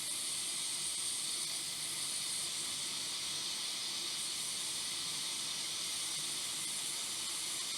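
Hot air rework station blowing a steady hiss at 40% airflow and 400 degrees, heating a small circuit board from the back until the solder holding a charging port melts.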